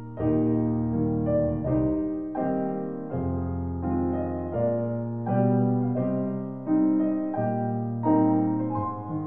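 Background piano music: an even run of struck chords, a new one about every two-thirds of a second.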